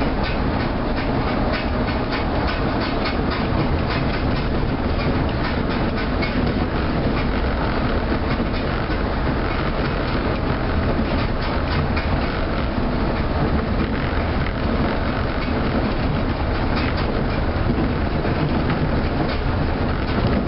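Osaka New Tram rubber-tyred automated guideway car running at a steady speed along its concrete guideway, heard from inside the car: a continuous running noise with many small clicks and rattles.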